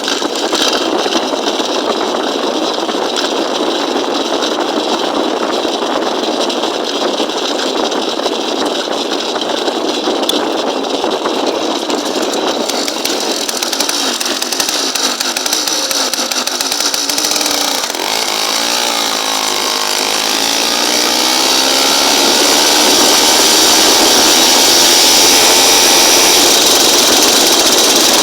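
Small engine of a motorized bicycle running with a buzzing, chainsaw-like sound. Its speed dips and swells again about two-thirds of the way through, and it then runs louder and higher.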